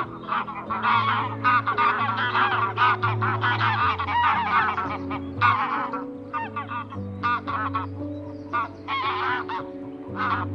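Many short, pitched animal calls in quick, overlapping succession, with brief pauses about six and ten seconds in, over background music of held notes.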